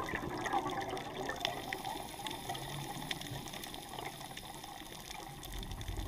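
Underwater bubbling and gurgling from a scuba diver's regulator exhaust, recorded through the camera housing. It is louder at the start, eases off through the middle and swells again near the end, with faint scattered clicks.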